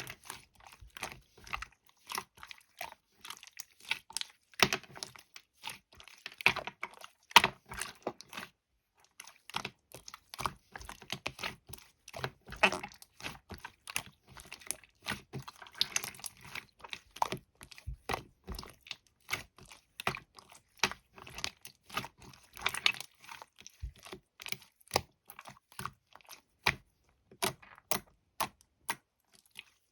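A rapid, irregular run of sharp clicks and crackles, with a brief pause about eight and a half seconds in.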